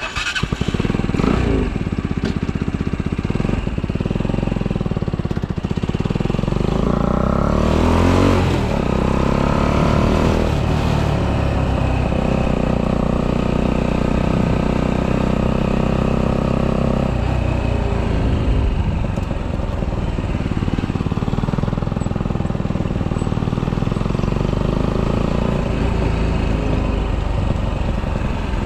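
A 125cc motorcycle engine, fitted with an aftermarket intake and exhaust and with ignition advanced to 42 degrees, pulls away and accelerates. The engine pitch rises and falls several times through the first half, then holds steady while the bike is ridden along.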